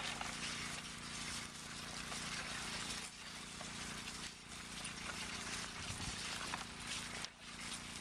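Outdoor field sound as a pair of Clydesdale horses draws a plough through stubble: a steady rush of noise, with a faint low steady hum underneath.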